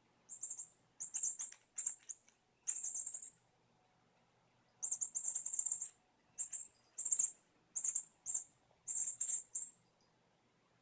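Squeaky mouse ball cat toy giving short, high, chirping squeaks in about a dozen quick bursts, some fluttering like a trill, as a kitten plays with it.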